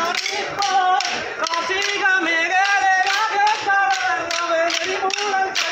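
Kolkali dancers' short wooden sticks clacking together in a steady rhythm, about two to three sharp strikes a second, over group singing of the accompanying folk song.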